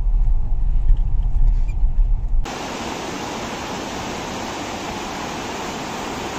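Low road and engine rumble inside the cabin of a Mahindra Scorpio N SUV driving a rough mountain road, then an abrupt cut about two and a half seconds in to the steady, even rush of water from the nearby waterfall.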